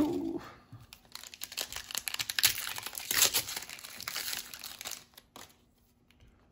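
Foil wrapper of a Pokémon trading card booster pack crinkling and tearing as it is ripped open by hand. The crackle stops about five seconds in.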